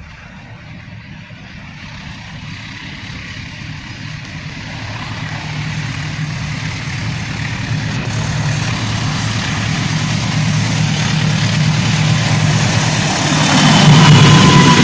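CC206 diesel-electric locomotive approaching along the track and passing close, its engine drone growing steadily louder and loudest as it goes by near the end.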